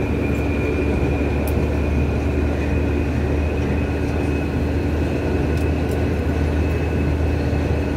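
Cabin of a New Taipei Metro Circular Line medium-capacity steel-wheel, steel-rail metro train running at speed: a steady low rumble of the wheels on the track, with a steady high-pitched whine over it.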